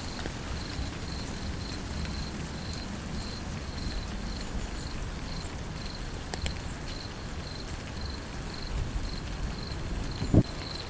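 Steady rain, with an insect chirping at a high pitch in even pulses, two or three a second. Near the end comes a single short, loud thump.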